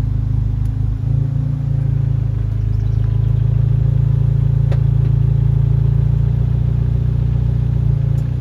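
Exhaust drone of a Mk7 Volkswagen's 2.0-litre turbocharged four-cylinder fitted with an APR cat-back and a catless downpipe, under normal everyday driving. The drone is steady and deep, rising a little about a second in and falling away sharply at the end.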